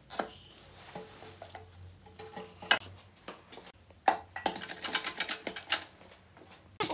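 Metal transmission parts clinking and rattling as a splined clutch drum is lifted out of a Buick automatic transmission's case: a few separate clicks, then a quick run of rattling clinks about four seconds in.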